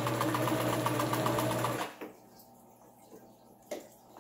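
Brother electric sewing machine stitching a seam at a fast, even pace, then stopping abruptly about two seconds in. A single small click follows near the end.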